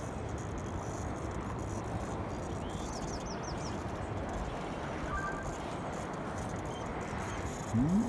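Steady outdoor background noise with a few faint bird chirps about three seconds in, then a short, louder rising sound just before the end.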